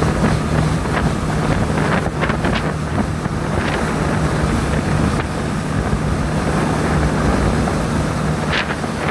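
A boat's engine running steadily under way, with wind buffeting the microphone and water rushing past the hull.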